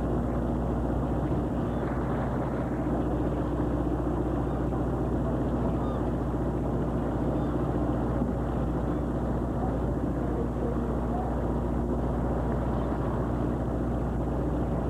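A commercial fishing boat's engine running steadily: a low, unchanging drone with a steady hum.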